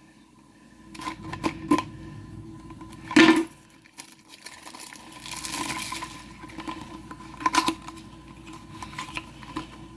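Small toy packaging being opened and handled by hand: a series of clicks and knocks, the loudest about three seconds in, with a stretch of rustling around the middle.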